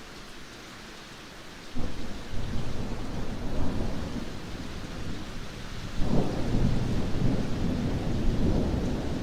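Steady rain with thunder: a deep rumble breaks in suddenly about two seconds in and rolls on, and a second, louder thunderclap comes about six seconds in and keeps rumbling.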